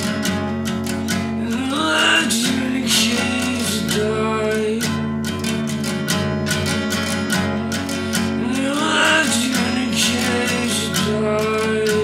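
Acoustic guitar played in a steady, even picking pattern, with a voice singing a rising and falling phrase over it twice.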